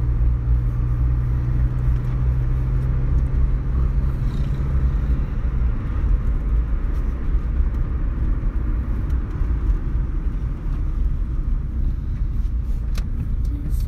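Engine and road noise heard inside a moving car's cabin: a steady low rumble, with a low hum that fades about five seconds in and leaves the broader road rumble.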